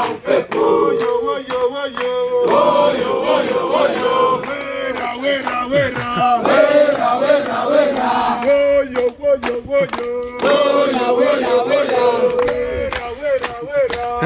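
A group of men singing and chanting together in chorus, with several voices holding and bending notes at once, and some sharp claps in the second half.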